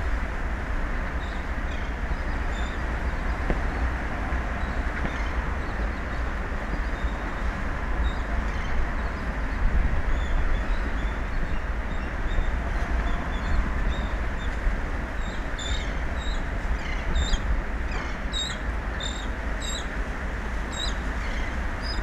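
Steady wind and open-ocean noise with a heavy low rumble on the microphone. Short high chirps sound over it, sparse at first and coming several a second in the second half.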